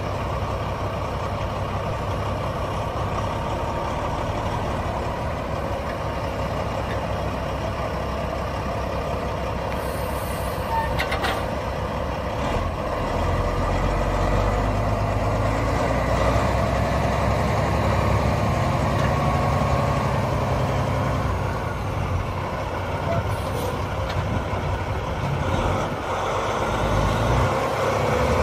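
Caterpillar C15 Acert inline-six diesel of a 2007 Kenworth W900 log truck running as the truck is driven slowly. Its low rumble grows louder from about halfway through, then eases. A short hiss of air sounds about ten seconds in and again later.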